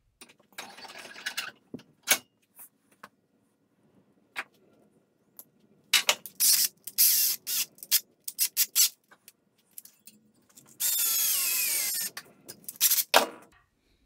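Stainless steel lock wire being bent and twisted into a loop around a pin held in a bench vise: a string of sharp metallic clicks and short scrapes, then a steady scraping whir with a falling pitch lasting a little over a second near the end.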